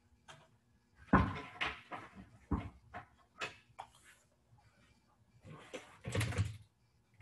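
Wall cabinet doors being opened and shut and things handled on the shelves: a string of knocks and clunks, loudest about a second in and again at about six seconds.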